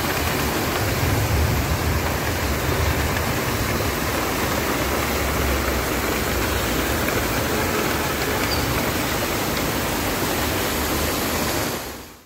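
Heavy rain and floodwater running over a street: a steady rush of water that fades out near the end.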